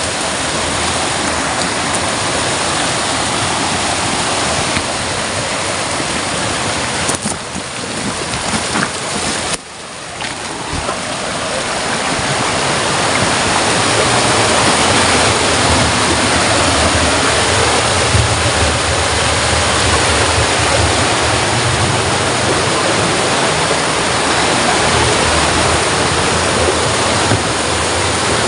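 Stream water rushing and splashing over rocks, a steady noise that grows louder about ten seconds in and then holds.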